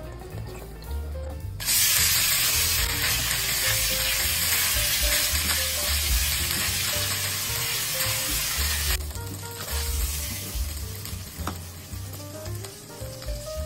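Sliced red sausages frying in hot oil in a stainless steel wok: a loud sizzle starts suddenly about two seconds in as the slices hit the oil, then drops to a softer sizzle about nine seconds in while a silicone spatula stirs them.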